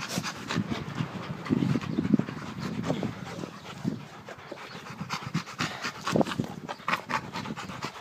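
Rottweiler panting hard close to the microphone, in quick short breaths, with scattered clicks and rustles as the dog presses against the person filming.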